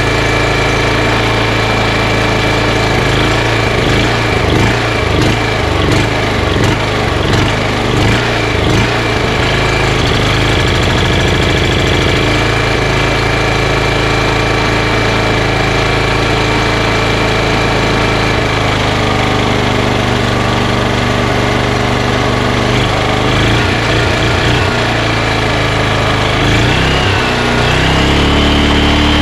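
Honda GX340 single-cylinder engine running without load, no pulley fitted on its crankshaft, started after sitting a couple of weeks. It runs a little unevenly for the first several seconds, then settles into a steady run, shifting pitch slightly near the end.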